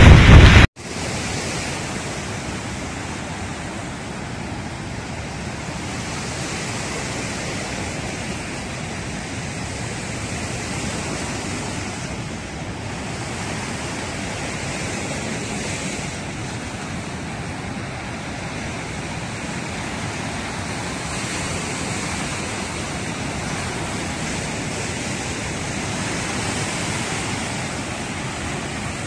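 Steady rushing roar of water released through the open spillway gates of the Nagarjuna Sagar dam and churning down the river. It follows a very loud burst of noise that cuts off suddenly under a second in.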